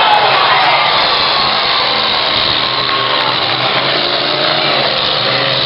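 Several demolition derby cars' engines revving in a loud, steady din, with an engine's pitch sliding down near the start.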